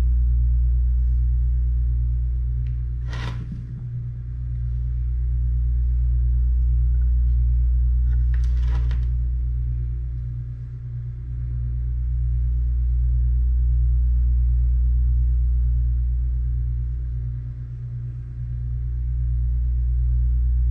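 A steady low rumble that swells and eases about every seven seconds, with two short, sharp noises about three and nine seconds in.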